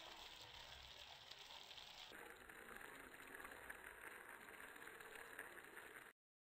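Shrimp in tomato sauce simmering in a clay tajine, a faint, steady sizzling and bubbling that stops abruptly near the end.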